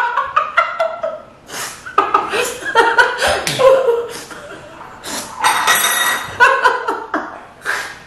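A woman and a young girl laughing in repeated bursts.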